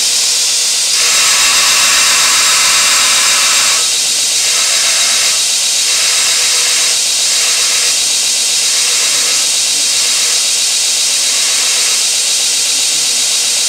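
Belt sander running with a steady hiss as a homemade steel drill bit is ground against the belt to break down its edge. From about four seconds in the grinding swells and fades about every one and a half seconds as the bit is pressed on and lifted off.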